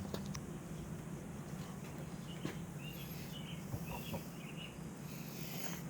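Small birds chirping several times over a steady low hum, with a few faint clicks.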